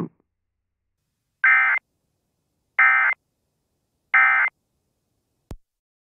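Three short bursts of Emergency Alert System digital data tones (SAME warble), about 1.4 seconds apart: the end-of-message code that closes an EAS broadcast. A single faint click follows near the end.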